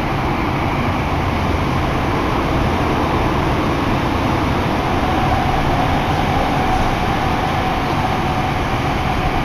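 Nagoya Municipal Subway Tsurumai Line train running between stations, heard from inside the passenger car: a steady rumble of wheels on rail and running noise. About halfway through, a faint steady whine rises out of the noise.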